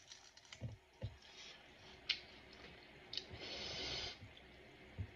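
Faint clicks and crackles of a crisp pani puri shell being broken open with the fingers, with soft squishes of the fingers in the potato filling. There is a sharper click about two seconds in.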